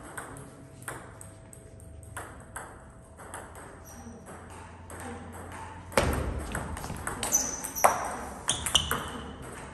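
Table tennis ball clicking off rackets and the table in quick succession, with harder hits from about halfway through as a rally gets going. Short squeaks of sneakers on the court floor come during the rally.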